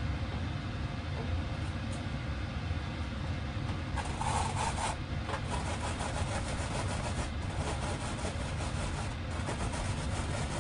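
Rice being washed by hand in a metal mesh strainer: quick, scratchy rubbing strokes of the grains that start about four seconds in, loudest at first. A steady low hum runs underneath.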